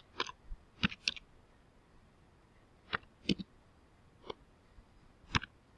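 Computer keyboard keys pressed one at a time in slow, irregular typing: about ten separate key clicks, with a pause of nearly two seconds after the first few.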